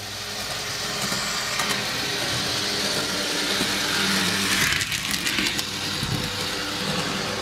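A Lionel PRR speeder, a small motorized O-gauge track car, running on three-rail track. Its motor and wheels whir louder as it comes close and passes about four to five seconds in, then fade a little, over a steady low hum.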